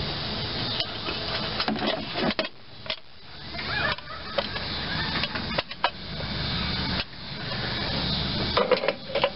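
Scattered clicks and knocks of hard plastic and metal parts being handled as the air cleaner is taken off a Briggs & Stratton lawn tractor engine to get at the carburetor, over a steady background hiss.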